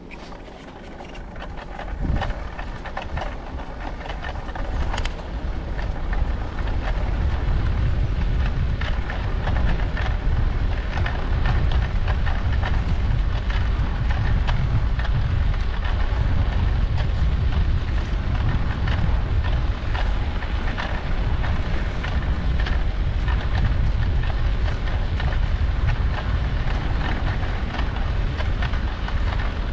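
Wind buffeting the microphone of a riding cyclist's camera: a deep, steady rumble with many small crackles. It builds over the first few seconds, then holds level.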